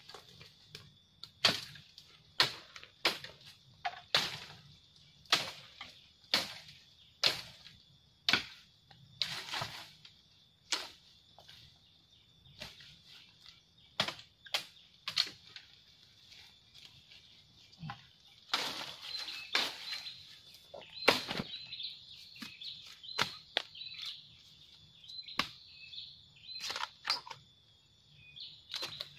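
Footsteps crunching and snapping through dry bamboo leaf litter and twigs, about one sharp crack a second at first, then scattered cracks as the forager stops and crouches. A steady high-pitched drone runs underneath, with short chirping notes in the last third.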